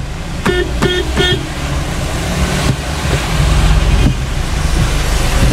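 Inside a moving car in heavy rain: a steady low rumble of engine and tyres on the wet road, with rain hiss over it. Three short beeps of a car horn sound close together between about half a second and a second and a half in.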